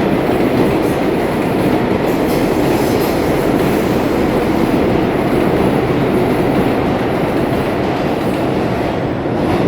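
Subway train running: a loud, steady rumble of wheels on the track.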